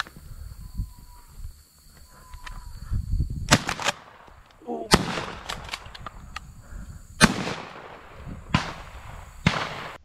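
Shotgun blasts at incoming doves: about five sharp shots a second or so apart, starting about three and a half seconds in, each trailing off in an echo. The loudest comes about seven seconds in.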